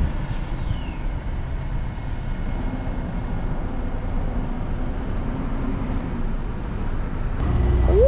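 Car driving along a road, heard from inside the cabin: a steady low rumble of engine and road noise. Near the end it gives way to a louder, deeper rumble with a brief rising tone.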